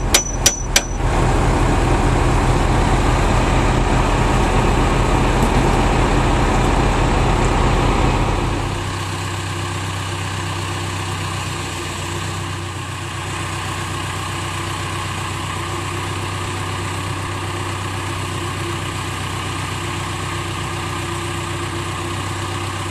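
A few hammer strikes on metal right at the start, then the backhoe's engine running steadily, louder at first and settling to a quieter steady idle about eight seconds in.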